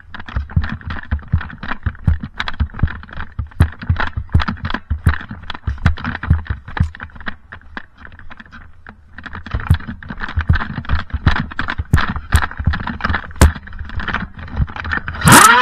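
Dense, irregular clatter of short knocks and clicks over low thumps, easing off briefly about halfway through. Near the end comes a loud sharp sound that runs into a tone falling in pitch.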